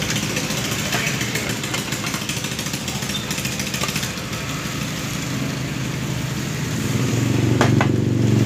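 An engine running steadily, growing louder from about seven seconds in, with a few sharp clicks near the end.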